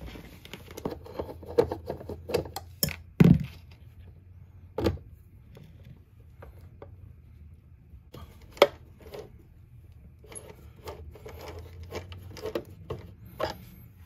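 Irregular clicks and knocks of hand tools and stiff wiring being handled at an RV's electrical distribution panel, with a sharper knock about three seconds in and another near nine seconds.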